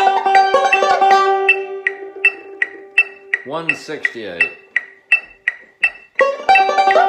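Five-string banjo played with finger picks, a fast bluegrass roll lick over a metronome's steady clicks. The picking stops just under two seconds in, leaving the metronome ticking about two and a half times a second, a man's voice speaks briefly near the middle, and the lick starts again about six seconds in at the metronome's tempo.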